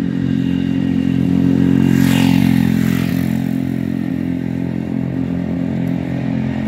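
Motor vehicle engine running with a steady low hum. A noisy swell, like a vehicle passing, peaks about two seconds in.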